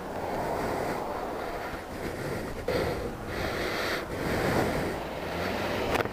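Rushing, wind-like noise on a helmet camera's microphone, swelling and fading irregularly, with a brief sharp click near the end.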